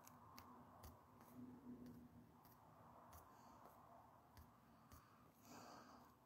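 Near silence with faint, irregular clicks, like fingertips tapping a phone's screen and handling the phone.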